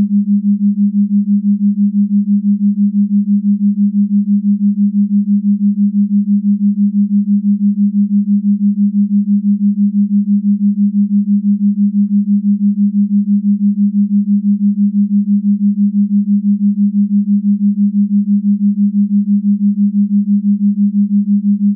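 A steady low electronic hum on one pitch, pulsing rapidly and evenly without a break.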